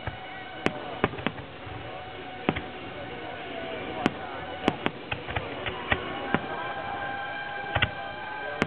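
Fireworks display: aerial shells bursting in a string of sharp bangs at uneven intervals, bunched around the middle and paired near the end, over the display's music and crowd voices.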